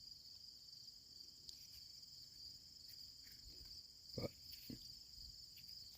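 Near silence, with faint steady high-pitched chirring of crickets in the background and a couple of soft knocks about four seconds in.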